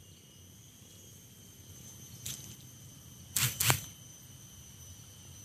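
Steady high-pitched chirring of insects, likely crickets, over a faint low outdoor rumble. About three and a half seconds in come two brief, loud rustling bursts close to the microphone.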